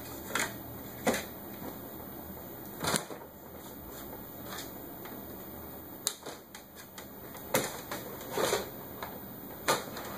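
A puppy's paws and claws knocking and scraping on a flat-screen TV's plastic edge and screen. The sound is a run of sharp, irregular clicks and short scrapes, about seven in all.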